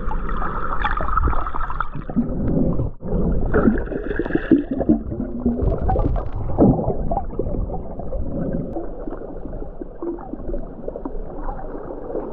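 Muffled sloshing and gurgling of water heard through an underwater action camera held by a snorkeler, uneven throughout, with a brief drop-out about three seconds in.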